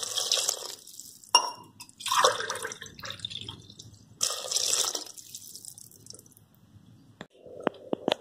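Water poured by the cupful from a steel tumbler into a pressure cooker, splashing onto the vegetables and masala in about four short pours of a second or less each. A few light clicks follow near the end.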